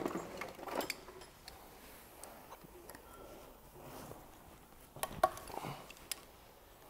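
Light clicks and rattles of gloved hands and tools working on an engine's wiring and fittings, with a few sharper clicks about five and six seconds in.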